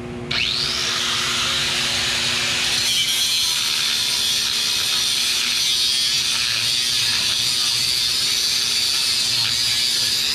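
Corded angle grinder starts about half a second in, its whine rising as the cut-off wheel spins up, then cuts steadily through the steel frame rail of a 2001 Ford Ranger with a loud, high-pitched grinding hiss.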